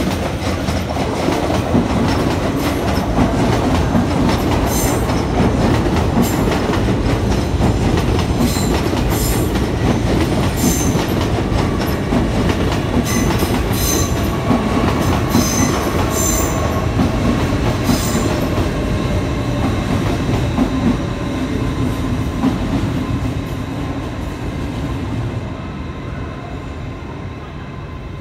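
An LNER Azuma (Hitachi) multiple unit running past: a loud, steady rail rumble of wheels on track, with short high squeaks from the wheels between about 5 and 18 seconds in. The sound fades away over the last few seconds as the train draws off.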